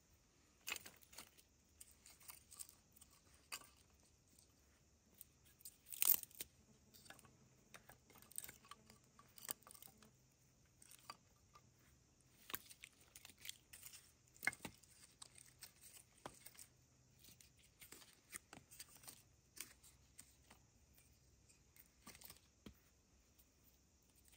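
Faint, irregular crackling and snapping of dry material, with one louder snap about six seconds in.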